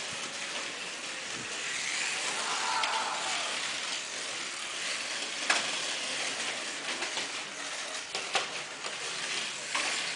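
Slot cars racing on a multi-lane track: a steady whirring hiss of small electric motors and cars running in their slots, with a few sharp clicks.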